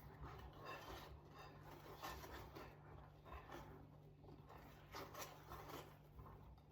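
Faint, repeated soft scraping strokes of cake batter being stirred in a mixing bowl, with flour being folded in gently rather than whisked.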